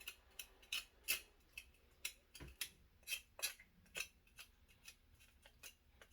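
Sharp snips and clicks, two or three a second at an uneven pace, from cutting through a pike's head while cleaning it.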